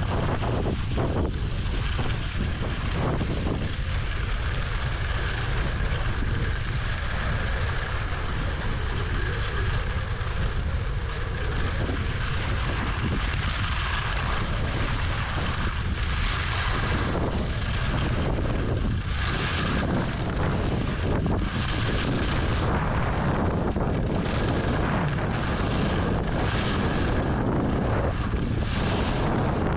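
Wind rushing over the microphone while skiing downhill at about 35 to 50 km/h, a constant low rumble, with the skis scraping over hard, icy snow in repeated streaks as they turn.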